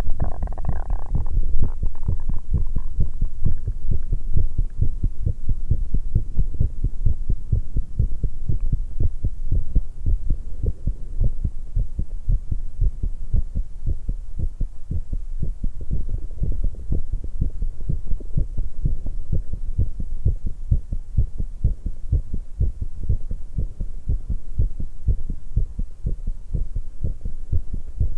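A young woman's heartbeat pounding fast and steadily, still raised after exercise, with a short stomach gurgle over it in the first couple of seconds.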